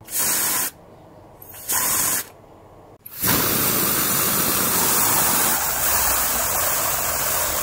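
Harsh static hiss: two short bursts, then a sustained stretch from about three seconds in that cuts off abruptly.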